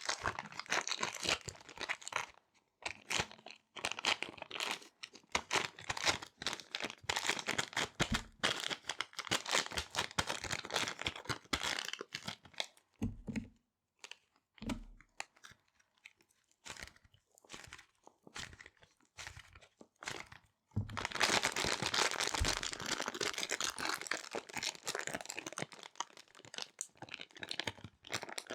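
Small resealable plastic bags being handled, crinkling and rustling close to the microphone. The crinkling comes in dense stretches, thins to scattered small clicks around the middle, then turns dense again for the last third.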